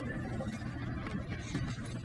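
Quiet room noise with a low steady hum and a few faint ticks.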